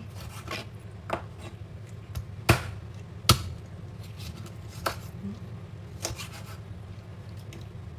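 A knife knocking on a chopping board in a few separate, uneven strokes, the two loudest about two and a half and three and a half seconds in, over a steady low hum.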